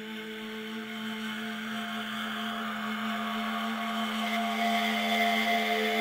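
Droning soundtrack sound: a steady low hum with a hiss above it, growing steadily louder.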